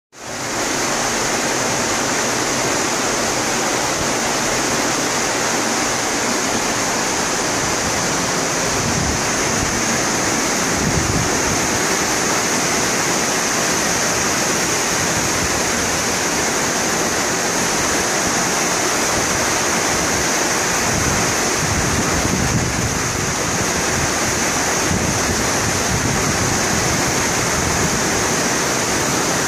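Steady rushing and churning of a cruise ship's wake behind the stern, with gusts of wind buffeting the microphone now and then.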